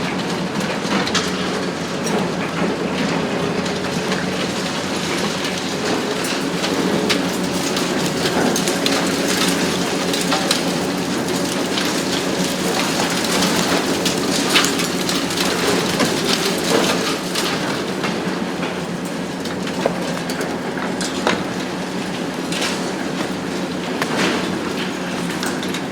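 Hitachi ZX870 long-front demolition excavator's diesel engine running steadily, with irregular cracks and crunches of concrete breaking and debris falling.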